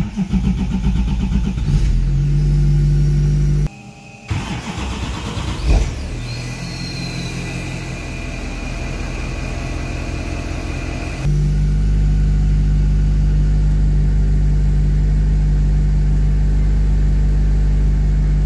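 LML Duramax 6.6-litre turbodiesel V8 in a Camaro starting up after its glow-plug wait and running, with a brief break about four seconds in. It then settles into a steady idle about eleven seconds in. This is the engine's first start after the diesel swap and base tune.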